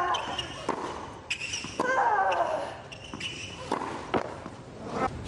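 Tennis rally: a series of sharp racket strikes and ball bounces on a hard court. A player lets out a falling grunt with her shot about two seconds in and again at the end.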